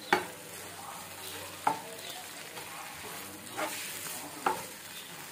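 Spatula stirring thick prawn masala in a non-stick frying pan over a low sizzle of frying, with a few sharp scrapes and knocks of the spatula against the pan.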